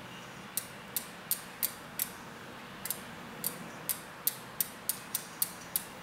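Sharp light ticks, about three a second and quickening toward the end, as a bicycle rear wheel is turned slowly past a cable-tie truing guide to check it for rub.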